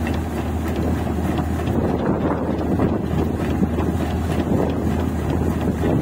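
Rice combine harvester's engine and unloading auger running steadily as paddy pours from the spout into a truck: a constant low hum under a dense mechanical rumble.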